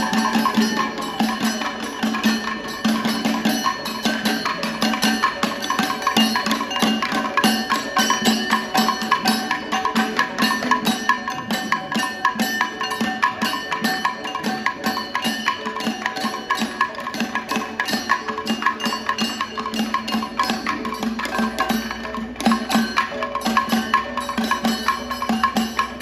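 Kathakali accompaniment: a percussion ensemble led by the maddalam barrel drum, playing a fast, dense rhythm that never stops.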